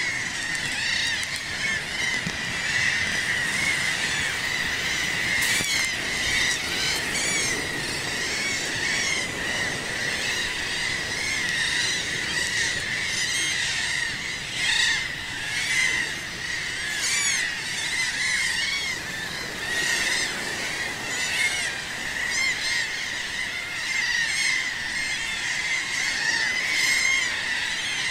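A large flock of seabirds calling continuously, many short high calls overlapping into a dense chorus, over the low wash of waves on rocks.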